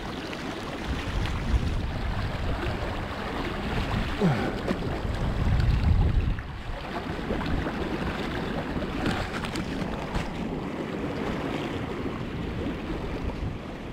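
Strong wind buffeting the microphone over the rush of fast river water, gusting loudest about six seconds in.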